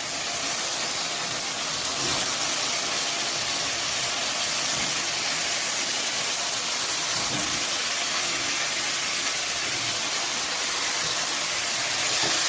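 Steady sizzling of parboiled cauliflower and ginger-cumin paste frying in hot oil in a kadai.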